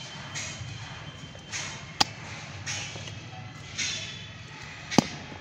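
Dry soil being scraped and scooped out of a planting hole with a small metal hand tool and fingers, a short gritty scrape about once a second. There are two sharp knocks, about two seconds in and near the end.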